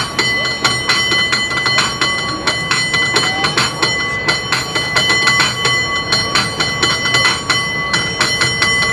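Cable car bell struck over and over in a fast, uneven rhythm, several clangs a second, its ringing tone carrying on between the strikes.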